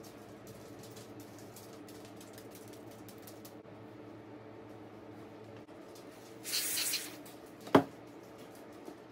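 Small parts and hand tools being handled while stripping down a Makita TD171D impact driver: light clicks and ticks throughout, a short hiss about halfway through lasting around half a second, then one sharp knock soon after.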